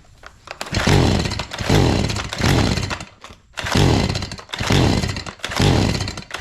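Stihl MS 180 C two-stroke chainsaw being pull-started on its recoil starter: six quick pulls, each spinning the engine over briefly without it catching.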